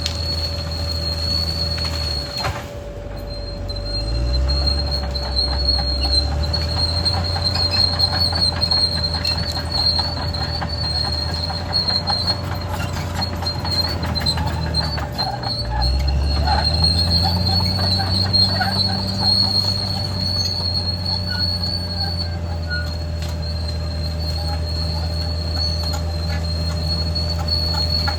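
Caterpillar D6R XL bulldozer's diesel engine working under load, with a steady high-pitched squeal over it. The engine dips and then revs back up twice, about two and a half seconds in and again about fifteen seconds in.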